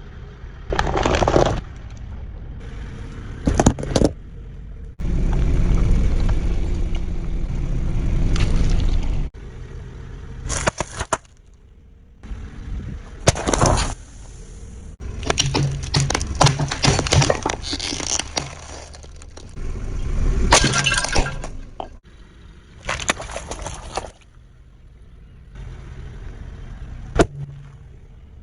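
Objects cracking and breaking as they are crushed by a car and a bulldozer, in a quick run of short clips with abrupt cuts, some breaks with a glassy clink, over a low vehicle rumble.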